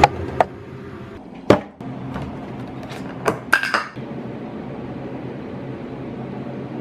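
Handling noise from a plastic juice bottle being taken off a wire fridge shelf: a few sharp knocks and clicks, the loudest about a second and a half in, then a quick cluster of clicks, before a steady low hum.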